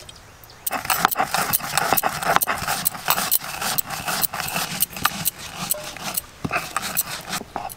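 Dry-roasted coriander, fennel and cumin seeds being crushed coarsely with a stone pestle on a flat stone grinding slab (shil-nora): a quick run of gritty crunches and clicks that starts about a second in.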